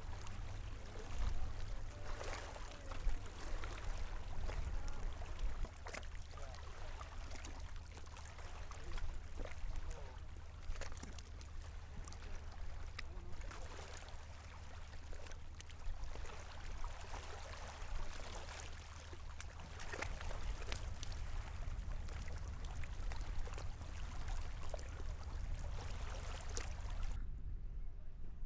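Outdoor field noise: water splashing and lapping with a steady low wind rumble and many scattered clicks and knocks. The splashing and clicks stop abruptly about a second before the end, leaving only the rumble.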